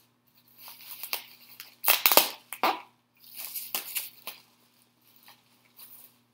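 Bubble wrap being unwrapped by hand: irregular crinkling and rustling, loudest about two seconds in and dying away in the second half.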